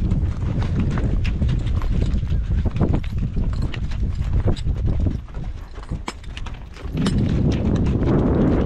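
Horses walking on sandy, stony desert ground, their hooves clip-clopping as a string of short knocks. Wind rumbles on the microphone throughout and grows stronger near the end.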